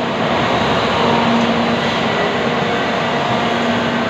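Steady, loud machinery noise of a timber-processing plant, with a few faint steady hums under an even roar and no distinct knocks.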